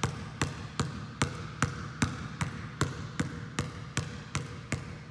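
Basketball dribbled one-handed on a gym floor in a steady rhythm of about two and a half bounces a second. It is a front V dribble, the ball pushed side to side from outside to inside of the hand.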